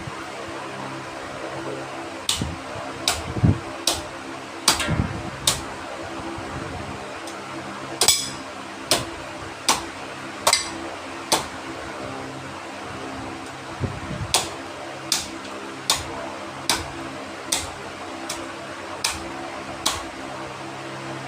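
Sharp knocks or taps, repeating roughly once a second in runs with short pauses, over a steady humming fan.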